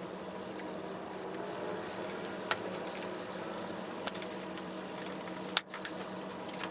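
A few sharp plastic clicks as ignition coil electrical connectors on a 2.5L Ecotec four-cylinder are unlatched and pulled off, the loudest near the end, over a steady background hum.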